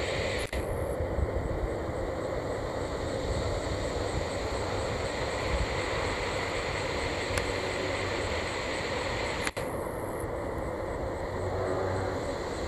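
Jet engines of a Boeing 767 freighter on final approach, a steady rushing jet noise. The sound cuts out for an instant twice.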